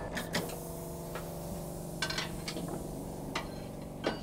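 Tire changer at work: scattered sharp metallic clicks and clanks as a tire is worked off a steel wheel on the turntable, over a steady hum.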